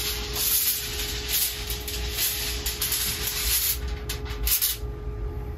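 Irregular rubbing and rustling handling noise as hands work at an ultrasonic cleaner's stainless wire basket, over a low rumble and a faint steady hum.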